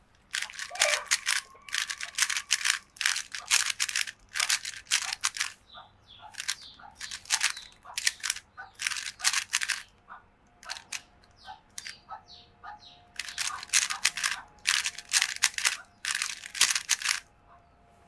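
Stickerless 3x3 speed cube being turned rapidly with fingertricks: fast runs of plastic clicking and clacking as the layers snap round while an algorithm is executed at speed, including M-slice pushes. There is a sparser lull of a few seconds past the middle.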